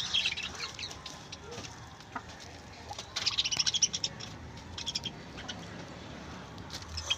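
Birds chirping in two short flurries of quick, high chirps, one at the start and one about three seconds in.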